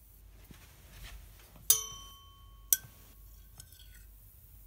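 A thin metal flute cleaning rod tapping against the glass tube of a plasma lamp: two sharp clinks about a second apart, starting nearly two seconds in. The first rings on with a clear tone for a couple of seconds.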